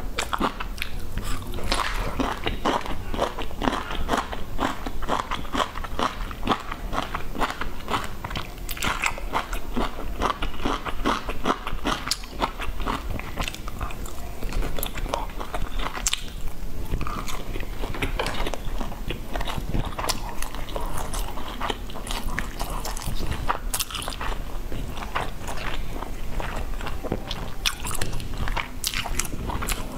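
A woman biting and chewing grilled skewered food: sausage, mushrooms, vegetables and meat pulled off bamboo skewers. Many quick, close-set clicks of chewing and biting go on without pause.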